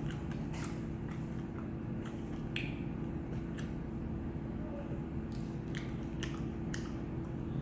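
A person chewing and eating close to the microphone, with scattered short wet mouth clicks and smacks, over a steady low electrical hum.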